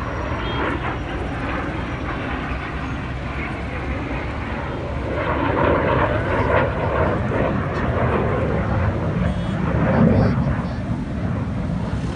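F-16 fighter jet flying past low, its engine noise a steady roar that swells about five seconds in and peaks again around ten seconds.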